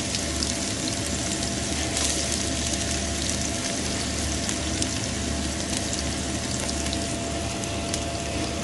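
Chopped red onions frying in hot vegetable ghee and oil in a stainless steel pot: a steady sizzle with fine crackling.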